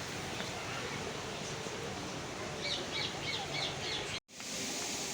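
A bird calling a quick run of about six short notes over a steady background hiss. The sound cuts out for an instant near the end.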